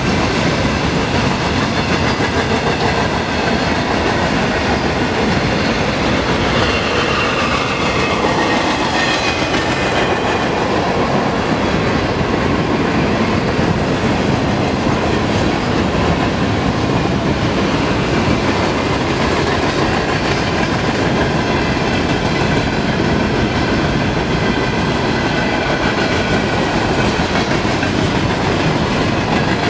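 Long Norfolk Southern freight train of boxcars, a tank car and coal hoppers rolling past at speed: a steady, loud clatter and rumble of steel wheels on the rails. A faint high ringing slides down in pitch about seven to ten seconds in.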